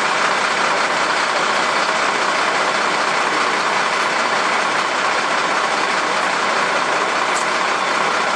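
Fire engine idling, a loud steady engine drone that does not change.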